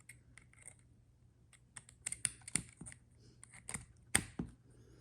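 Scattered light plastic clicks and taps from handling a laptop and USB gear, irregular and unevenly spaced, with the loudest clicks about two and a half and four seconds in.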